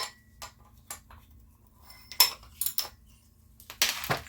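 Metal tools and engine parts clinking and knocking against each other: scattered sharp clinks, a quick cluster about two seconds in, then a short scraping noise near the end.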